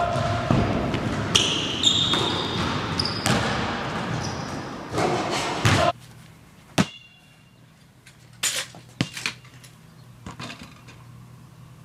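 Basketball bouncing with players moving on a hard floor in an echoing gym, loud and dense. About halfway through it cuts off suddenly to a quieter stretch with a few separate sharp knocks, a basketball striking hard surfaces.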